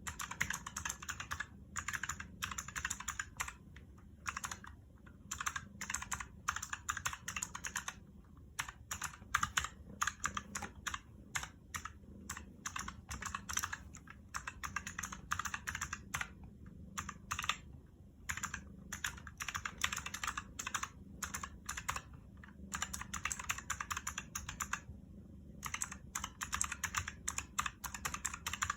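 Typing on a Razer mechanical keyboard with purple clicky optical switches: fast runs of sharp, clicky keystrokes, broken by short pauses about 8, 17 and 25 seconds in.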